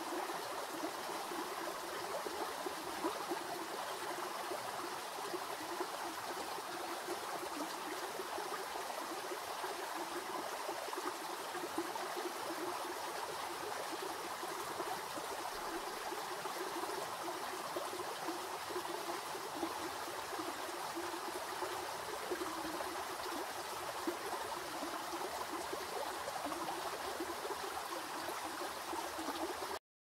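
Creek water running and trickling steadily, with a light gurgle; it cuts off abruptly near the end.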